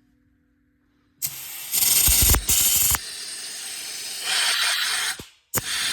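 Near silence with a faint hum for about a second, then several bursts of loud hissing that start and stop abruptly, the loudest about two seconds in, with a short break near the end.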